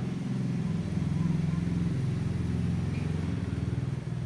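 An engine running steadily with a low, pulsing hum.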